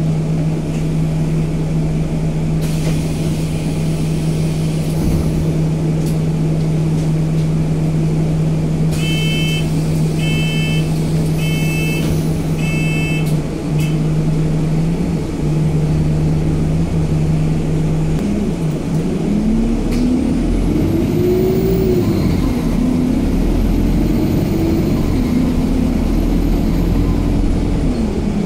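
Alexander Dennis Enviro 200 MMC single-deck bus heard from inside the saloon: the diesel engine idles with a steady hum, and about nine seconds in a run of short, high door warning beeps sounds. From about eighteen seconds the engine pulls away, its pitch rising and falling through the gear changes, with a faint high whine rising and falling alongside.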